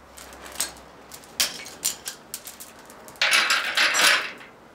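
Heavy-duty roller chain for a motorized-bicycle engine kit clinking as it is handled: a few sharp metallic clicks, then a louder stretch of rattling about three seconds in as the chain is dragged up to the sprocket.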